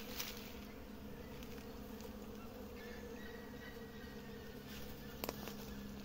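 Many bees buzzing steadily while they forage among the blossoms of a flowering tree: a continuous low hum. A single short click sounds about five seconds in.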